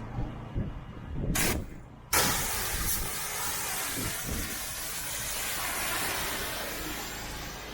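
Vanguard 14 hp Briggs & Stratton engine on a pressure washer running steadily to warm its oil before an oil change. A brief hiss comes about a second in. Shortly after two seconds a loud, steady hiss starts suddenly and continues over the engine.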